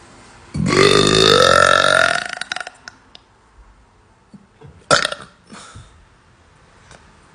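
A long, loud burp, rising in pitch, starting about half a second in and lasting nearly two seconds. A short sharp sound follows near five seconds.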